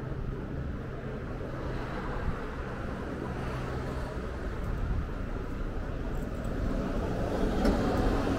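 City street traffic: a vehicle's low engine rumble, with a steady low hum in the first half, growing louder near the end.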